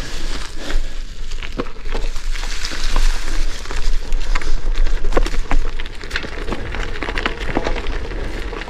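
Gravel bike tyres (650b × 43 mm Panaracer GravelKing) rolling over a loose gravel road: a steady crunching hiss with many small, irregular clicks of stones under the tyres.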